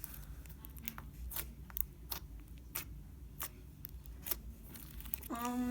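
Thick, glossy homemade slime being stretched and worked by hand, giving off irregular sharp sticky clicks and small pops. Near the end a short hummed "mm".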